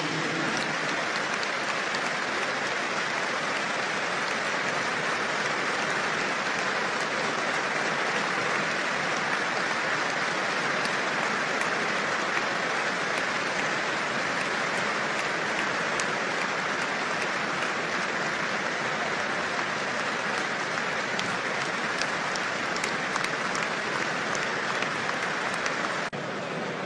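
Stadium crowd applauding steadily and at length, a memorial applause for a player who has died; it drops a little in level near the end.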